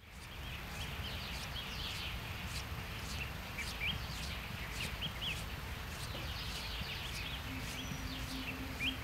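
Small birds chirping: many short, quick rising chirps and sharp calls repeating, over a steady low rumbling background. A faint steady hum comes in near the end.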